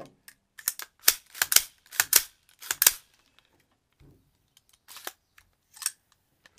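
M4-style rifle being handled and moved: a quick run of short clicks and rattles in the first half, then a few more near the end.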